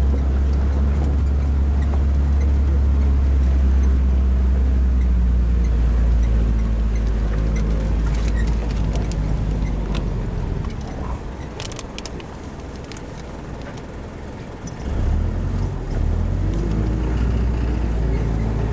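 A four-wheel-drive jeep's engine running as it drives over a rough mountain dirt track, making a heavy low rumble. The rumble eases off about ten seconds in, with a few sharp knocks, and picks up again about fifteen seconds in.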